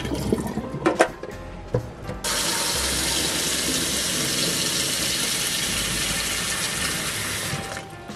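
Kitchen tap running into a steel bowl of eggs in a stainless sink. For the first two seconds water trickles while the eggs are rubbed clean by hand, with a few light clicks and knocks. About two seconds in a full stream of tap water starts suddenly, splashing steadily onto the eggs, and it stops near the end.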